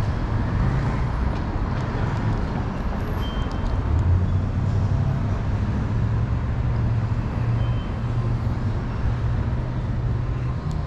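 Steady road traffic noise: vehicle engines and tyres running, with a low engine hum throughout.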